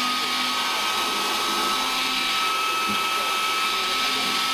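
Countertop blender running steadily, whizzing tofu and melted chocolate into a mousse mix: a steady motor whine over a rushing noise.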